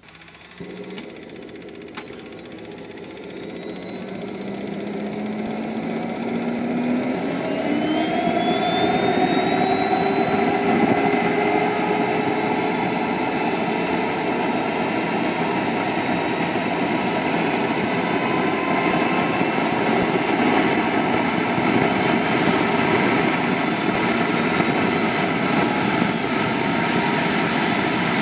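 Behotec J55 model jet turbine starting up: the sound comes on suddenly, grows louder over the first ten seconds or so, then holds steady while its whine keeps climbing in pitch as the turbine spools up.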